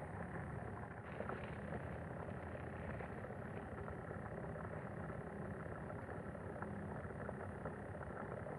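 A steady low engine hum, even throughout, with a few faint clicks.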